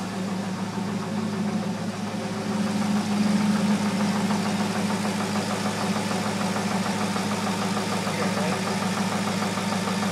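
2002 Corvette Z06's LS6 V8 idling steadily with an engine knock running through it.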